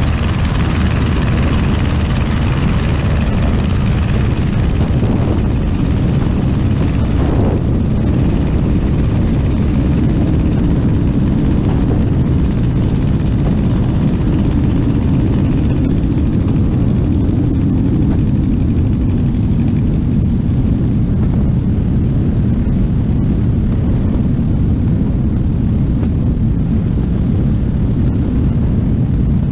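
Aeronca Champ light plane in flight: its single piston engine and propeller give a loud, steady drone, with the hiss of rushing air over it.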